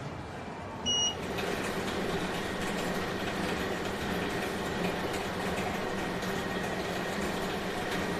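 A short electronic beep about a second in, then a luggage-wrapping machine starts and runs steadily, its motor humming with a faint high whine.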